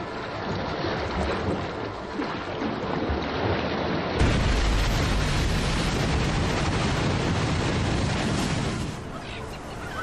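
Sea water splashing and surging with wind, as a great white shark breaches and falls back into the sea. It gets louder and deeper from about four seconds in and eases near the end, when a few faint gull calls come through.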